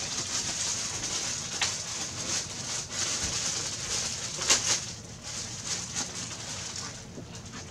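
Clear plastic packaging bag rustling and crinkling as it is handled, with sharper crackles about a second and a half in and again near the middle; it dies down towards the end.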